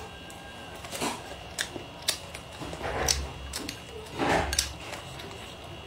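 Close-miked eating sounds: wet chewing and slurping of a mouthful of rice and vegetables, with light clicks of wooden chopsticks against the bowl. Two longer slurping swells come about three and about four and a half seconds in.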